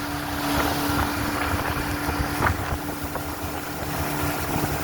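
Small boat's motor running steadily underway, a constant hum over a low rumble and rushing noise.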